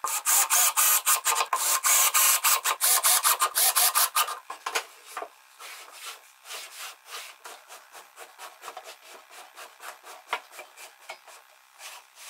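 A hand tool scraping over wood in quick back-and-forth strokes, about four or five a second. The strokes are loud and hard for about the first four seconds, then go on lighter.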